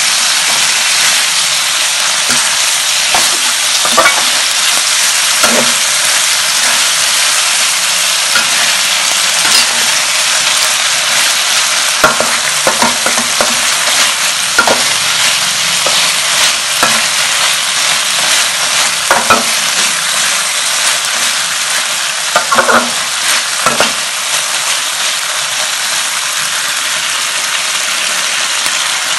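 Cow tongue stir-frying in a stainless steel wok: a steady sizzle, with the metal spatula scraping and clinking against the pan every few seconds as the food is turned.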